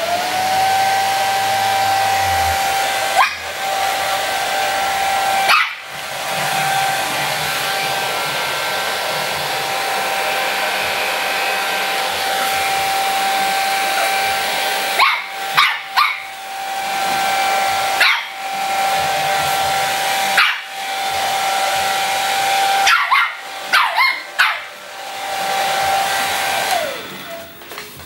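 Hand-held hair dryer running steadily, a high motor whine over rushing air, winding down near the end. A Shih Tzu puppy barks at it in short sharp barks, scattered early on and several close together in the second half.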